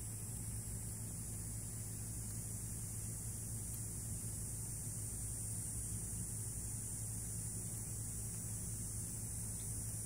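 Steady low hum under a steady high-pitched hiss, with no distinct events.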